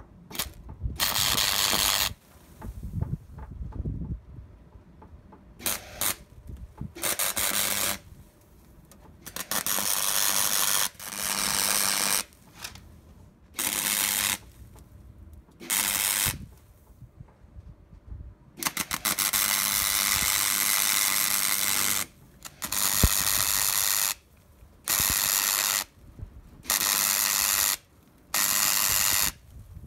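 MIG welder stitch-welding a new steel repair panel onto a steel chassis rail: about a dozen bursts of steady crackling arc, most one to two seconds long, with a longer run of about three and a half seconds just past the middle, and short pauses between welds.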